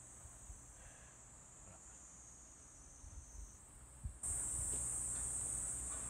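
Steady high-pitched chorus of insects, jumping abruptly louder about four seconds in, over a low rumble of wind on the microphone and a few soft knocks.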